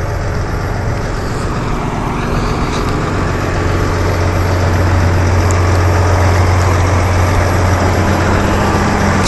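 John Deere 7280R tractor's six-cylinder diesel engine running steadily with a deep hum, growing a little louder from about three to five seconds in.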